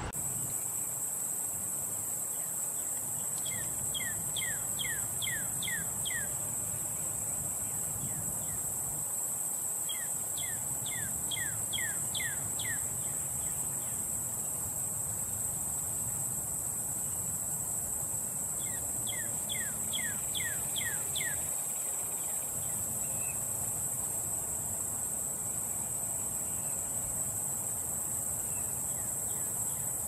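Northern cardinal singing three phrases, each a quick run of about six down-slurred whistles, over a steady high-pitched insect buzz.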